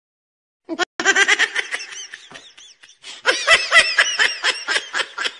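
High-pitched laughing in a fast run of short pulses, starting about a second in.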